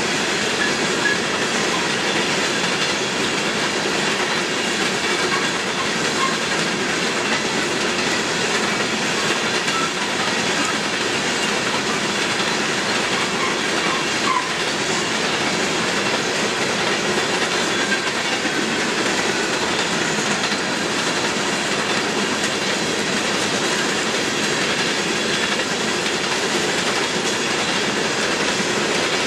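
Loaded coal hopper cars of a long freight train rolling past, a steady rumble and clickety-clack of wheels over the rail, with a few faint, brief squeals of wheel flanges.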